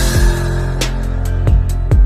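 Background music with a steady drum beat, kick drum and cymbals over sustained bass and chords, coming in louder right at the start.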